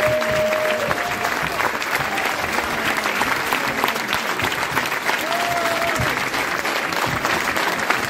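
Theatre audience applauding, a dense, steady mass of hand clapping. Two long held calls from the crowd rise above the clapping, one at the start and one about five seconds in.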